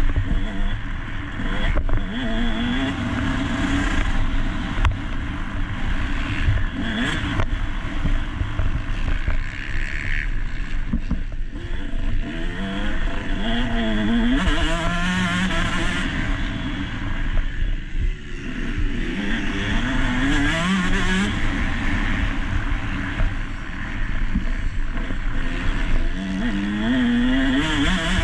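Motocross bike engine heard onboard, revving up in pitch and dropping back again and again, with a few sharp knocks.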